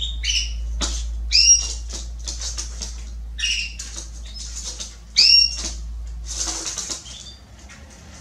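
Female Belgian canary giving short, downward-slurred call notes, about five of them, the loudest about one and a half and five seconds in, with quick clicks and rustles between them. These are the calls of a hen in breeding condition asking a male for mating.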